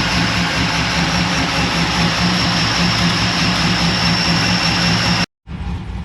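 Holden VY Commodore SS's 5.7-litre LS1 V8 running steadily, loud and close. It cuts off suddenly about five seconds in, then a quieter engine sound follows.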